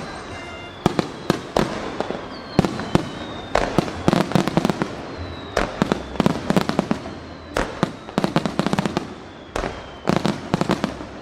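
Aerial fireworks shells bursting in rapid clusters of sharp bangs, several a second, with faint thin whistles from shells in flight between them.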